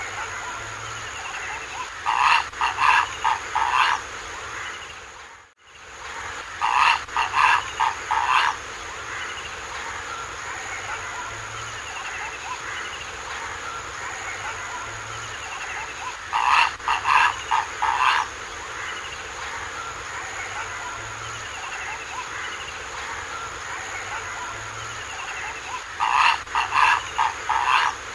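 Purple heron giving harsh croaking calls in quick bouts of five or six notes, four bouts several seconds apart, over a steady high background hiss with faint chirps.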